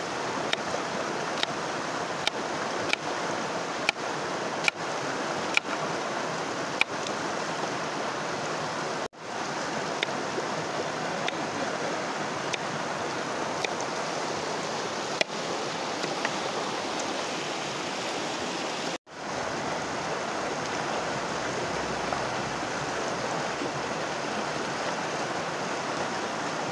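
Steady rushing of a creek flowing over stones, with faint sharp ticks scattered through it, most of them in the first few seconds. The sound cuts out abruptly twice.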